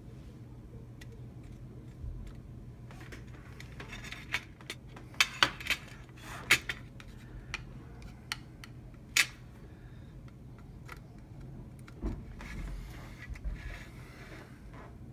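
Sharp metallic clicks and taps of a hand tool and parts knocking against a metal mint tin. They come in a quick cluster about four to seven seconds in, with one more loud tap about nine seconds in and a few softer knocks near the end, over a steady low hum.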